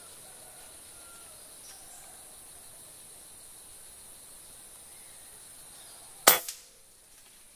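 A single rifle shot about six seconds in, sharp and short with a brief echo, fired at a green pigeon in the treetop. Under it a steady, faint, high insect buzz.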